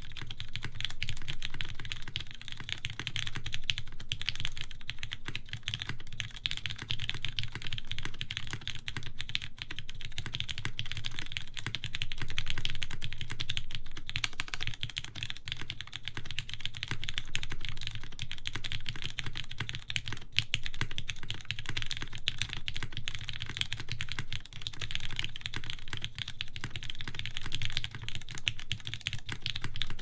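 Continuous typing on a full-size Carolina Mech Fossil mechanical keyboard with lubed Cherry MX Black linear switches, a carbon fibre plate and GMK ABS keycaps. It makes a dense, steady stream of keystrokes with no pauses.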